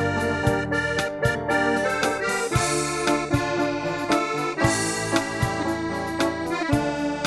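Instrumental music: sustained keyboard chords over a steady beat of about two hits a second.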